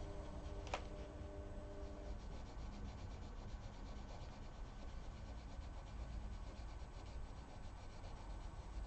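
Green Prismacolor coloured pencil rubbing across paper in quick, repeated shading strokes, a soft scratchy sound. A sharp click just under a second in.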